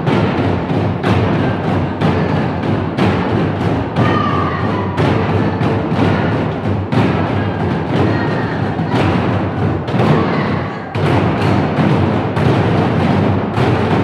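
A group of barrel drums beaten with sticks in a fast, dense, continuous rhythm, the strikes overlapping one another.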